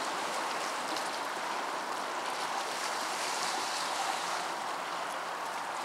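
Sea waves washing steadily against the rocks of a stone breakwater, with a little wind.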